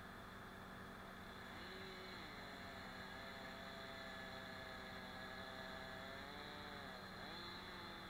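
Faint distant engine running, its pitch holding steady for a few seconds, then dipping and rising again near the end.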